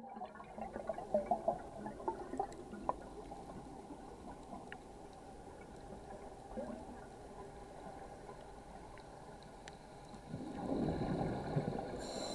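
Underwater ambience: scattered faint clicks and crackling with gurgling bubble sounds from divers' exhaled breath, a louder bubbling stretch starting about two seconds before the end.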